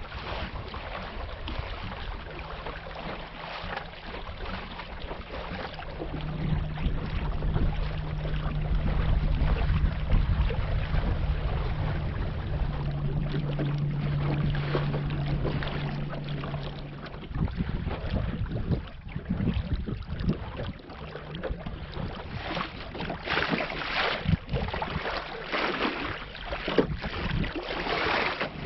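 Water rushing and slapping against the hull of a small sailboat under way, with wind buffeting the microphone. A steady low hum runs through the first half, then fades out. After that the water sounds become choppier and more splashy.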